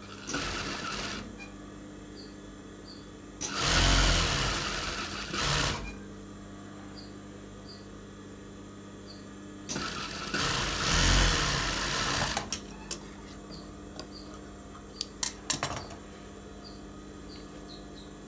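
Industrial sewing machine stitching a seam through cotton shirt fabric in short runs: a brief run at the start, then two longer runs of about two to three seconds each, around 4 s and 11 s. A few sharp clicks follow near the end.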